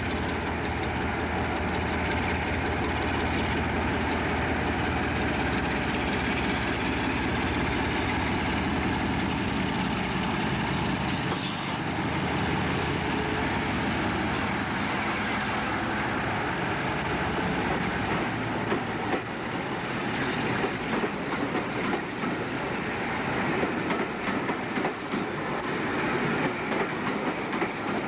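British Rail Class 47 diesel locomotive's Sulzer V12 engine running steadily as it draws its coaches along the platform, with brief high squeals about eleven and fifteen seconds in. In the second half the engine drone fades and the coaches' wheels click rhythmically over the rail joints.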